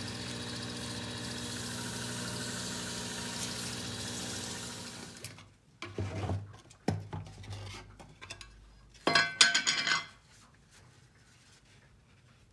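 A cue lathe's motor runs with sandpaper hissing against the spinning wooden shaft, then shuts off about five seconds in. After that come scrapes and knocks, and about nine seconds in a loud metallic clatter as the lid of a metal can of clear finish is opened.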